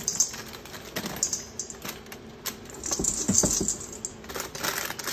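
White chocolate chips poured from a bag into a stainless steel mixing bowl of nuts, a rapid clatter of small clicks against the metal and each other.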